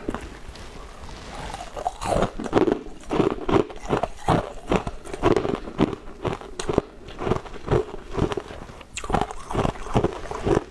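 Crunching and chewing on frozen ice cubes, a quick run of crisp bites about two or three a second that starts about two seconds in, with a brief pause near the end before the crunching resumes.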